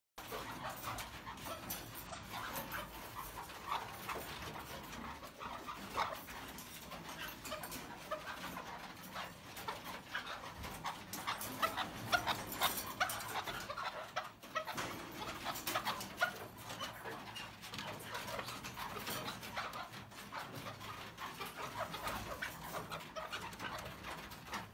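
Caged birds in an aviary room calling and chirping, a dense, irregular mix of short calls.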